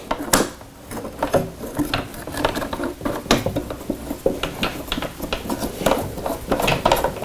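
Metal and plastic parts of a light panel's mount being handled and slid into place: a run of small clicks, clinks and knocks.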